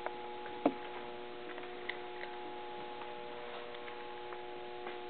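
A cat crunching dry kibble, heard as scattered small irregular clicks with one louder click under a second in, over a steady electrical hum.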